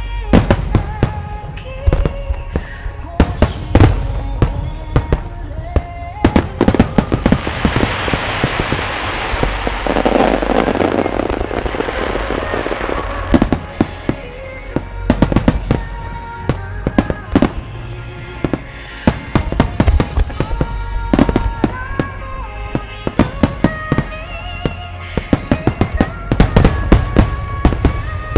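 Large aerial firework shells bursting in many sharp bangs, in quick runs and single reports, over music with a melody. A dense rushing crackle fills the middle stretch.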